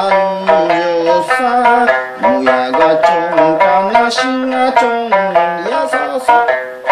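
Okinawan sanshin being played: a melody of quick plucked notes on its three strings, with runs and slides between pitches.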